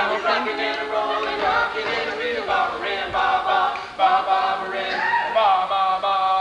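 A group of male voices singing together, the pitch moving through a vocal line.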